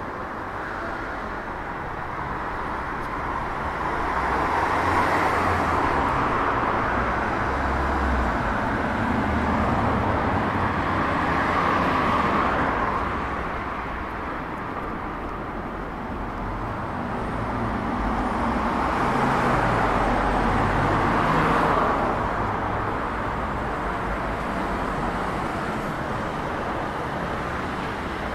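Road traffic: cars driving past, their tyre and engine noise swelling and fading about three times over a steady background rumble.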